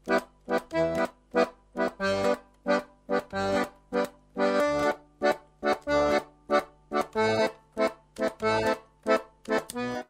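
Accordion music: short, detached chords alternating with low bass notes in a lilting, waltz-like pattern.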